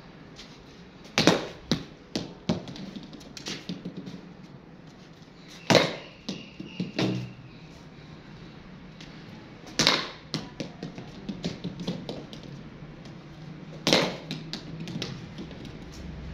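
A cricket ball being blocked off the bat in front-foot defence, four times about four seconds apart. Each sharp knock is followed by a few lighter taps as the ball bounces on the concrete floor.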